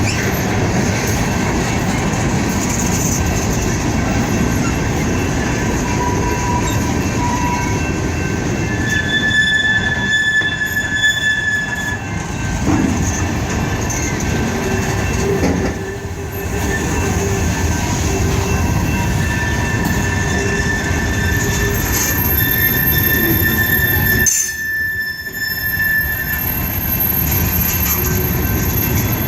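Freight cars of a CSX freight train rolling past with a steady rumble of wheels on rail, and high-pitched wheel squeals that come and go.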